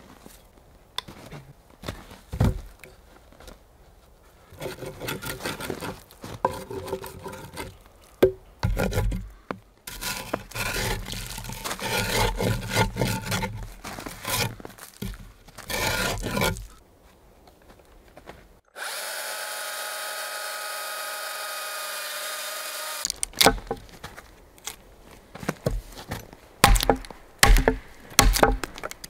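Woodworking on a log: rhythmic saw strokes scraping through the wood, then a steady power-tool whine for about four seconds. Near the end come sharp knocks as the notch is chopped out and chips split away.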